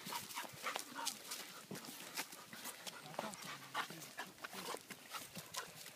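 A dog panting close by, with irregular crunching clicks of footsteps on dry leaves and grass.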